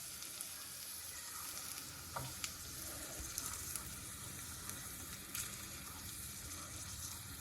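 Hot mustard oil in a pan sizzling faintly and steadily as the fried cloves and garlic are crushed in it, with a few light clicks.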